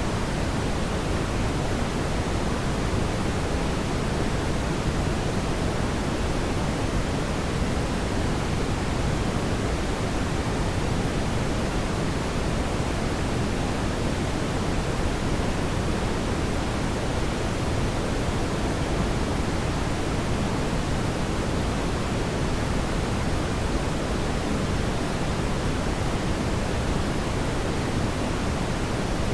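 Fireplace ambience: a steady, even rushing noise, heavier in the low range, with no distinct crackles or pops.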